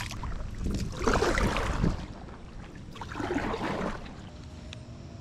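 Paddle blade dipping and pulling through the water beside an inflatable paddle board: two strokes about two seconds apart, each a swishing wash of water lasting about a second.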